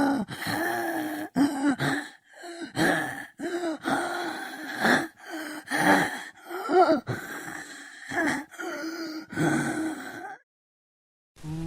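Zombie sound effect: a string of strained, gasping groans and moans from a human voice, each a second or so long with pitch bending up and down. They cut off abruptly about ten seconds in, and after a second of silence a different steady buzzing sound starts near the end.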